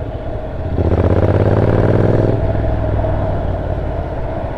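Honda NC750X motorcycle's parallel-twin engine heard from the rider's seat, pulling harder for about a second and a half, then easing to a steady cruise, with road and wind noise underneath.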